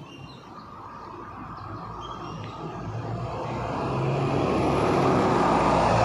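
A road vehicle approaching, its engine and tyre noise growing steadily louder over several seconds.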